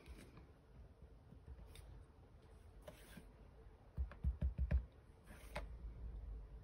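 Clear stamp on an acrylic block dabbed several times onto an ink pad: a quick run of about five soft low thumps about four seconds in. Light clicks and paper rustles around it as the block is handled and then pressed onto paper.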